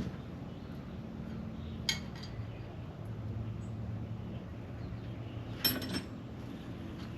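Steel hand tools clinking against the steering cylinder's cotter pin and mount while working the stubborn pin out: two sharp metallic clinks with a brief ring, about two seconds in and again near the end, over a low steady hum.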